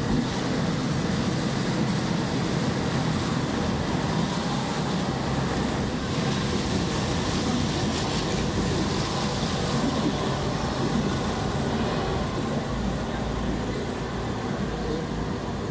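Steady traffic noise heard from inside a moving vehicle in slow city traffic on a wet road: engine running and tyres on the wet street, with other cars around.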